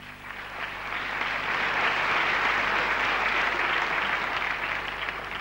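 Theatre audience applauding, building over the first couple of seconds, holding, then tapering off near the end.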